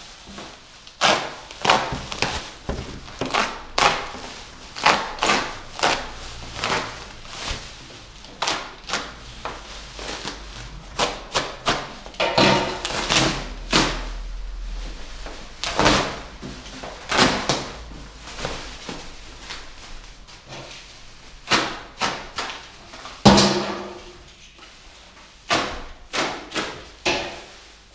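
Bubble wrap and plastic film being torn and pulled off by hand, crackling and rustling in quick irregular bursts. A louder thump comes about five seconds before the end.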